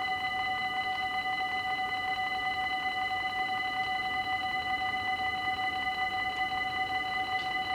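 Dutch level-crossing bells at an automatic half-barrier crossing, ringing continuously in rapid, even strokes with a steady metallic ring.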